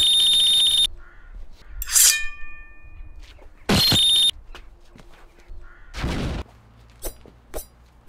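Loud edited meme sound effects. A harsh, distorted blast with a shrill steady tone plays, then a metallic ring like a blade being drawn about two seconds in, then the same harsh blast again about four seconds in. These are followed by a short whoosh and a few sharp clicks near the end.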